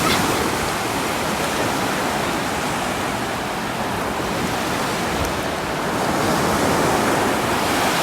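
Sea surf washing up on a sandy beach, a steady rush of breaking waves that swells about twice.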